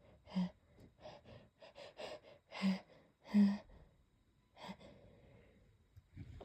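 A person building up to a sneeze: a run of short, catching gasps and sniffing breaths, a few of them voiced, the loudest two about three seconds in. At the very end a sharp burst begins as a stifled sneeze breaks through.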